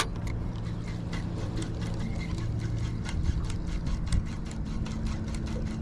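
Spinning reel cranked fast on a retrieve, a fast, even ticking, starting with a sharp click as the bail snaps shut after the cast. Under it, a steady low hum from the boat's motor.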